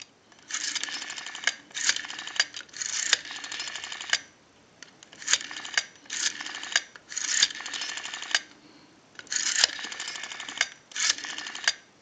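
Western Electric rotary dial being dialed digit after digit. There are several runs of rapid clicking, each a digit as the finger wheel is pulled round and spins back under its governor sending pulses, with short pauses between the digits.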